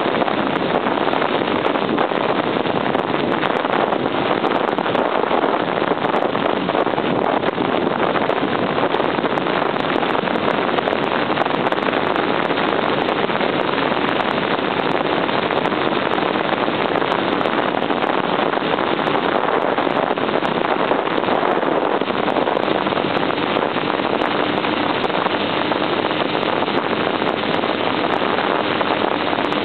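A 1978 Honda CB750 motorcycle under way at a steady pace, its inline-four engine running under a continuous rush of wind over the microphone.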